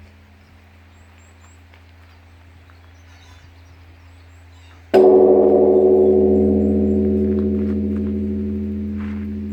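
Korean Buddhist temple bell struck once about five seconds in, then a long, slowly fading ringing hum. Before the strike, the low hum of an earlier stroke is still dying away.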